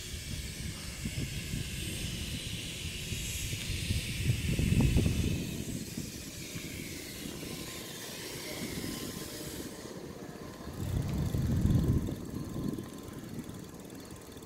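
Wind buffeting the microphone of a phone carried on a moving bicycle, with two louder gusts of rumble about four and eleven seconds in, over a higher steady hiss that drops away about ten seconds in.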